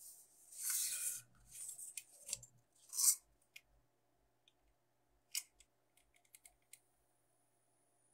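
Crinkly rustling of a thin plastic acetate sheet and craft foam being pressed and handled, in three short bursts, followed by a few faint clicks.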